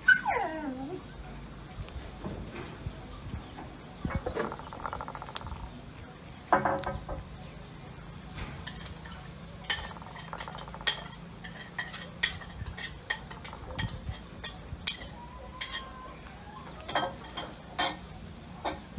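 A cat eating fish and rice from a ceramic plate: many short, sharp clicks and clinks of teeth, tongue and food against the plate, thickest in the middle of the stretch. Right at the start a brief, loud sound sweeps steeply down in pitch.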